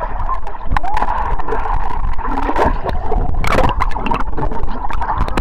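Muffled water sound heard through a microphone held underwater in a swimming pool: gurgling and bubbling with scattered sharp clicks and splashes. A louder rush of water comes about three and a half seconds in.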